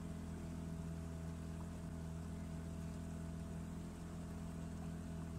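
Boat engine running steadily with an even, low hum.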